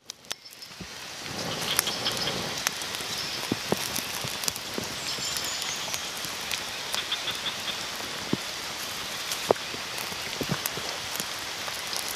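Light rain falling steadily, an even hiss with scattered sharp ticks and pops.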